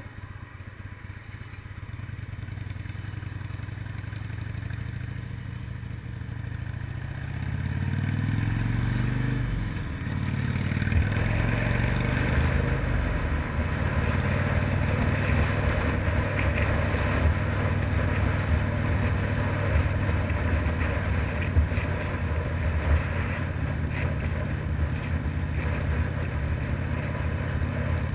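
Harley-Davidson FXRDI V-twin engine running low and quiet at first, then pulling away about eight seconds in, its revs rising and dropping back through gear changes. It settles into steady cruising, with wind noise on the microphone building as speed rises.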